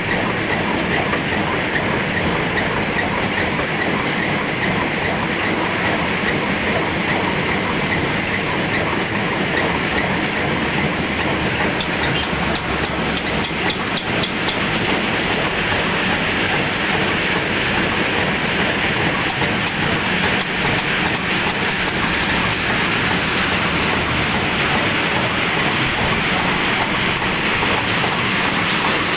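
Two-tier peanut sorting machine running, a steady dense rattle with many fine clicks.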